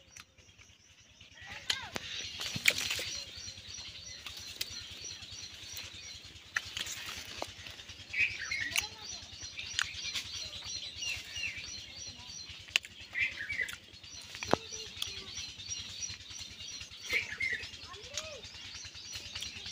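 Birds calling in the foliage, starting about a second and a half in. One gives a fast, even, high-pitched chirping that runs on and off, and a short curling call comes back about every four seconds. Scattered sharp clicks and leaf rustles sound over them.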